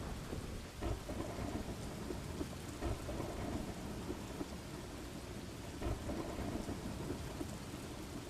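Steady rain with low rumbles of thunder, briefly swelling louder about one, three and six seconds in.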